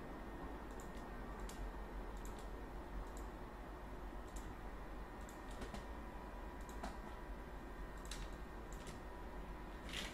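Scattered clicking of a computer mouse and keyboard, about a dozen sharp clicks at irregular intervals, with the loudest near the end, over a steady low hum and hiss.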